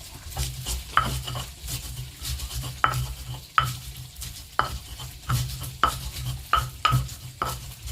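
Pestle (ulekan) grinding chilies and salt in an Indonesian cobek mortar: repeated scraping strokes with a sharp knock about every half second to a second.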